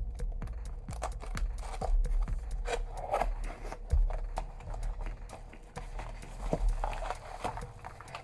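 A cardboard box being opened and its packaging handled: irregular rustling and crinkling, scattered clicks, and occasional dull knocks.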